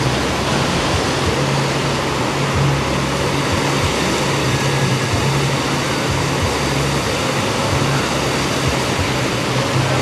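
Steady rushing of sea surf washing over shoreline rocks, with a low steady hum beneath it.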